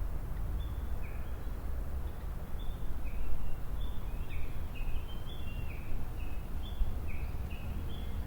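Japanese bush warbler giving a long, quick run of short notes that alternate between a higher and a lower pitch, the repeated "kekyo-kekyo" of its tani-watari (valley-crossing) call. A steady low wind rumble lies under it.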